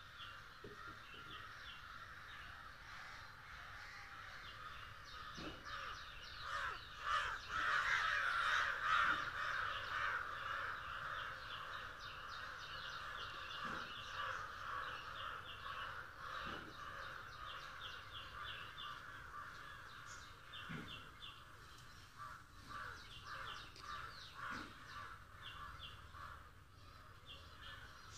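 Birds calling in the background, a dense chorus with short repeated chirps above it, loudest from about seven to ten seconds in.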